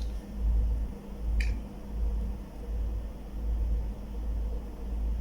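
Low, uneven rumble on the microphone that swells and fades about once a second, over a faint steady hum, with one faint click about a second and a half in.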